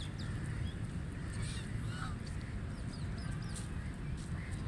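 White domestic ducks quacking, over a steady low rumble and scattered short, high chirps.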